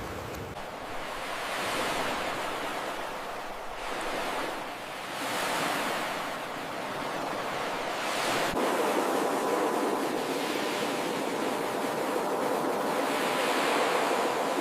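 Ocean surf breaking and washing up a beach, swelling and easing several times, with a sharp click a little past halfway.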